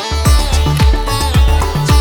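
Electronic dance music with a steady kick drum about twice a second, under sustained synth notes and a plucked-string-like melody.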